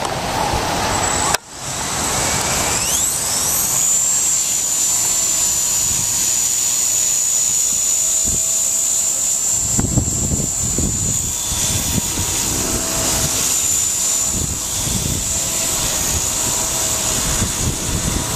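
Blade 130X micro RC helicopter spooling up and flying: a high motor and rotor whine rises in pitch over a couple of seconds, then holds steady. Gusts of wind buffet the microphone.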